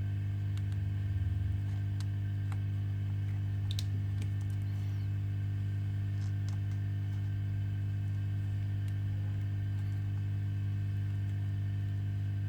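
Steady electrical hum, with a few faint, sharp clicks and taps of small tools working on a smartphone, mostly in the first few seconds.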